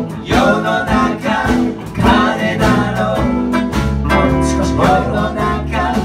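Live band music: an archtop electric guitar and a ukulele playing together, with sung vocal lines. Low notes come in more strongly about four seconds in.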